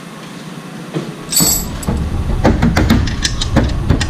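A run of sharp metal clinks and knocks from hand tools and parts being handled as the fuel return pipe area of the engine is taken apart. Underneath them is a steady low rumble that starts suddenly about a second in.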